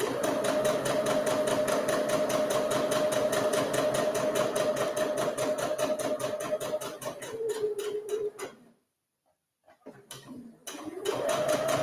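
Electric sewing machine stitching a seam through two layers of cotton fabric, the motor running fast with rapid needle strokes. About seven seconds in it slows and stops for a second, then starts again slowly and speeds back up near the end.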